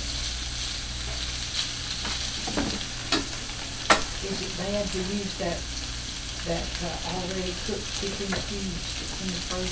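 Cubed chicken sizzling in olive oil in a small skillet as it is stirred, with a few sharp clicks, the loudest about four seconds in.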